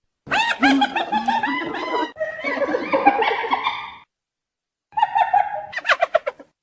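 Spotted hyena giggling: a rapid series of high, arched, laugh-like yelps, breaking off for about a second past the middle and then starting again.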